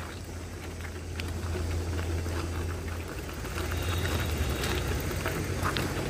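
Motorcycle engine running at low speed on a rough track, with scattered small clicks and rattles. Its steady low hum turns uneven about three seconds in.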